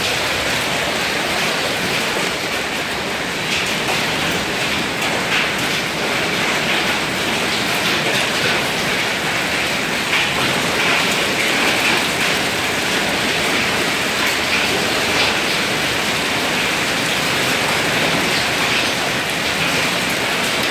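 Heavy rain mixed with hailstones about the size of corn kernels, pelting pavement and a tiled doorstep: a steady, dense hiss full of tiny ticks from the hail hitting the ground.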